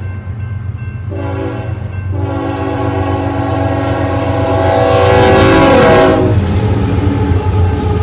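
BNSF ES44DC GEVO diesel locomotive's air horn sounding for a crossing: a short blast, then a long blast that gets louder as the locomotive nears and drops in pitch as it passes. The horn then gives way to the loud rumble of the locomotive's engine and wheels going by.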